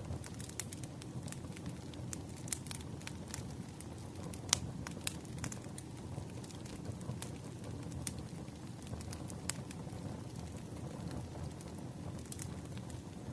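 Burning firewood crackling: a steady low rumble of the fire with irregular sharp pops and snaps, the loudest about four and a half seconds in.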